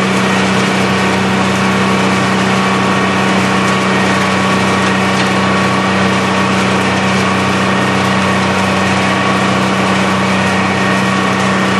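Rotochopper EC-156 horizontal grinder, driven by a 250-hp three-phase electric motor, running steadily while grinding pallets. It gives a constant hum and roar, with faint scattered crackles of breaking wood.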